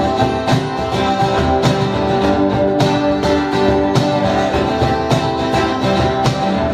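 Instrumental break of a pop-rock song: guitar over a steady drum beat, with no vocals.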